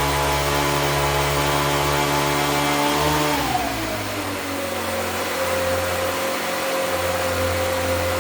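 A motor running steadily with a whine, which slows to a lower pitch about three and a half seconds in and then holds steady.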